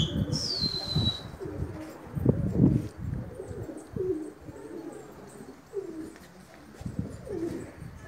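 Domestic pigeons cooing: several short, low coos spread through, with a high falling whistle about half a second in.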